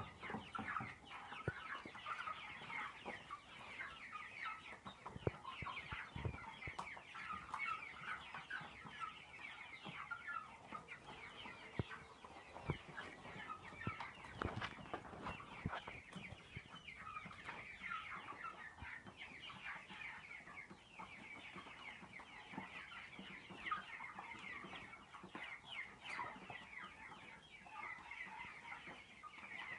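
A flock of young chicks peeping and cheeping without pause, many short high chirps overlapping, with a few soft knocks here and there.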